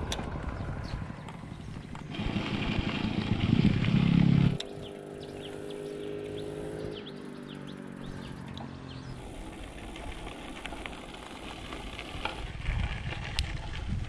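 Wind and riding noise on a bicycle's handlebar microphone, building up and then cutting off abruptly. After that a motorcycle engine runs steadily for a few seconds and fades, leaving quieter road noise.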